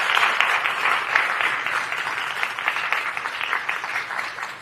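Audience applauding, a dense patter of many hands clapping that slowly thins and dies down.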